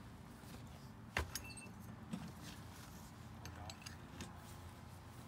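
A couple of sharp metallic clinks about a second in, one with a brief ringing note, then a few softer ticks: hand tools clinking while a motorcycle's flat rear tyre is being changed.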